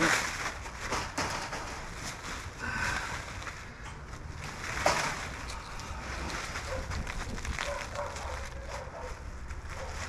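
Wet potting soil tipped out of a fabric grow bag onto a plastic tarp: the bag and tarp rustling as the heavy soil slides and spills out, with a louder thump at the start and another about five seconds in.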